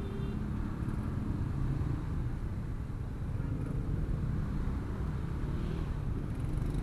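Steady low rumble of slow, stop-and-go road traffic heard from a motorcycle: the rider's own stock-exhaust motorcycle and the cars, trucks and scooters around it, all creeping at low speed.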